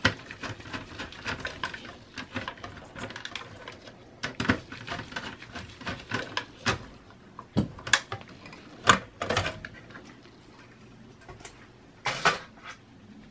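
Computer parts being handled by hand: a string of light clicks, taps and scrapes, with louder knocks about seven and a half and nine seconds in and again near the end.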